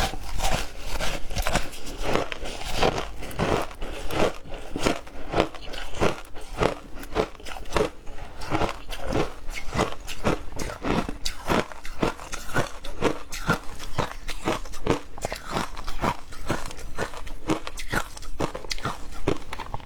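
White ice being bitten and chewed close to the microphone: a steady run of crisp crunches, about two or three a second.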